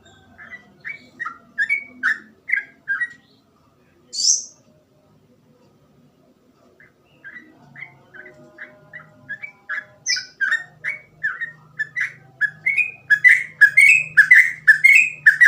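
Yellow-vented bulbul (trucukan) singing: a short burst of quick chattering notes, a pause, then a long rapid run of notes that grows louder near the end.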